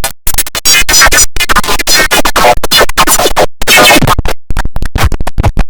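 IBM OS/2 Warp 3 shutdown sound, heavily distorted by stacked audio effects: loud, chopped and stuttering, cut on and off several times a second, with warbling pitched fragments between the cuts.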